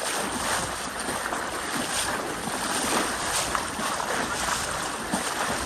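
Steady rushing noise of wind and moving river water, with a few faint irregular knocks.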